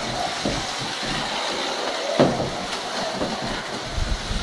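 Scalextric Digital slot car running on plastic track: a steady buzz from its small electric motor, with the tyres and guide blade rattling in the slot. There is a sharp knock a little after two seconds.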